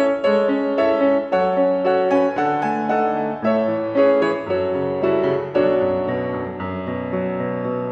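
Steinway grand piano played solo: a steady run of struck notes and chords, each ringing on under the next.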